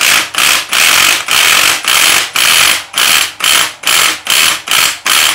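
Hand ratchet wrench being worked back and forth to loosen a nut on a motorcycle springer fork, a steady run of rasping ratchet strokes at about two to three a second.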